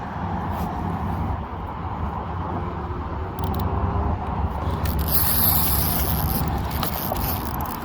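Steady low engine rumble, with a brief high hiss about five seconds in.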